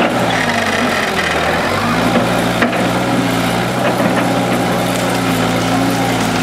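Hydraulic excavator's diesel engine running steadily, its pitch stepping up about two seconds in as it revs under load, with a few sharp cracks.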